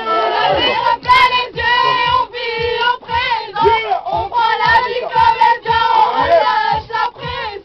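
Loud singing in short repeated phrases with held notes, over a steady low beat.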